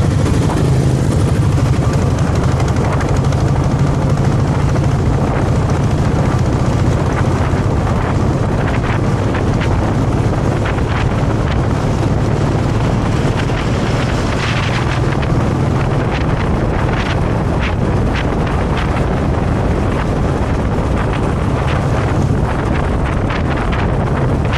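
Royal Enfield Classic 350 UCE's single-cylinder engine running steadily while the bike is ridden, mixed with wind noise buffeting the microphone.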